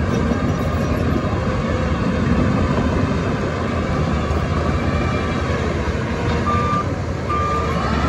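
Heavy diesel earthmoving machinery running steadily with a low rumble. A reversing alarm gives a few short beeps near the end.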